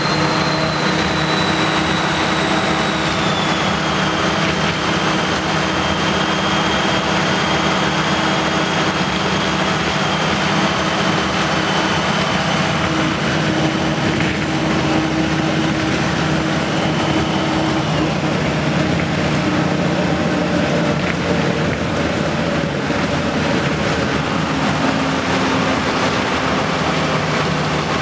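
Ikarus 280.26 bus's Rába D10 diesel engine running loudly under way, heard from inside the passenger cabin. Over the low engine hum sits a high, jet-like whine that drops slightly in pitch about four seconds in and dies away about two-thirds of the way through.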